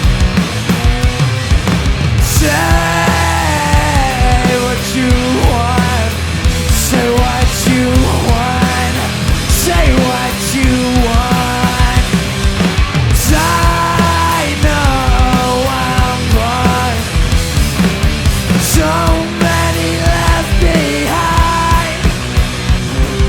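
Rock band playing an instrumental break with distorted electric guitar, bass and drums. A lead melody slides and bends in pitch over the top, and cymbal crashes come every few seconds.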